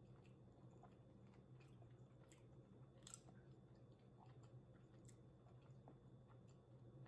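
Faint close-up chewing and biting, with soft scattered clicks and one sharper click about three seconds in, over a low steady hum.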